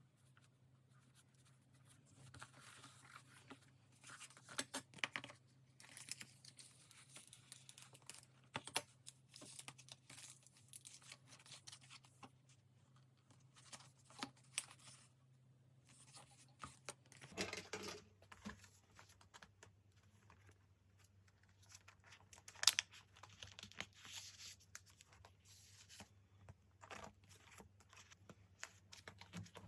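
Quiet, intermittent tearing and crinkling of paper and sticker material being handled for diary decorating, with soft taps in between.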